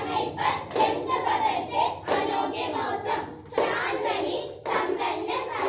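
A girl singing into a microphone, with hand clapping.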